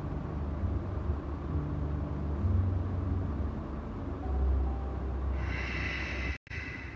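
A low, steady rumble with shifting low tones, joined near the end by higher tones, and cut by a brief dropout just before the end.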